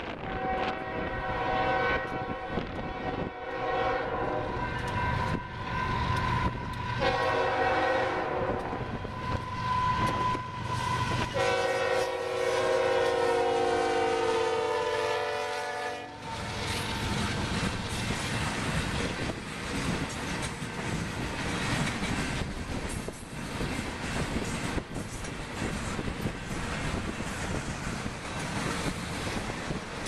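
Union Pacific diesel locomotive's multi-chime air horn sounding several blasts for a grade crossing, the last one long, ending about sixteen seconds in. Then the freight train's wheels rumble and clack over the rails as the cars pass, with wind noise on the microphone.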